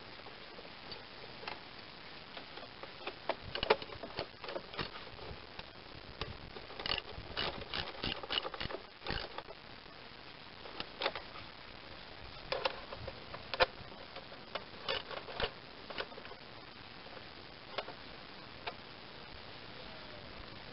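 Irregular clicks, taps and knocks of hands and a wrench working on a lawn tractor engine's sheet-metal and plastic covers as they are fitted back on. The engine is not running.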